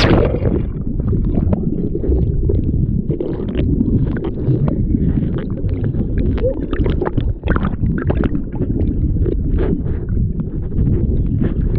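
Jet ski running at speed across the water, with a steady rough rumble and wind buffeting the microphone.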